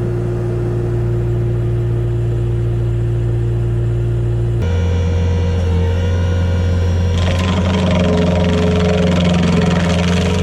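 Heavy machine engine running steadily with a low, even hum. About halfway through the sound cuts to another machine's lower-pitched engine, and a rougher grinding noise joins it near the end.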